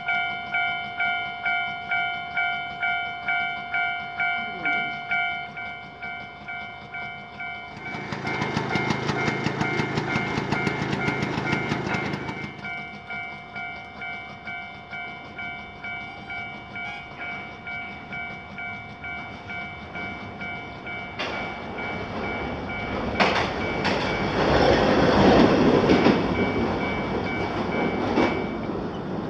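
Japanese level-crossing alarm ringing, an electronic bell sounding about twice a second, until it cuts off near the end. Under it a Hankai streetcar passes twice, with wheels rolling on the rails: a stretch of rolling rumble about eight seconds in, and a louder passage near the end.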